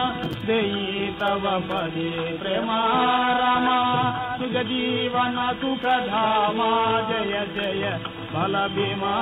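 A male harikatha performer sings and chants a devotional verse in Carnatic style over accompaniment that holds steady notes underneath. It is played from an old 78 rpm shellac record, so the sound is narrow and dull at the top, with a few surface clicks.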